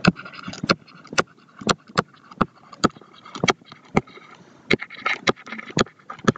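Stylus tapping and scratching on a tablet screen while handwriting: sharp, irregular clicks, about two or three a second, with faint scratching between them.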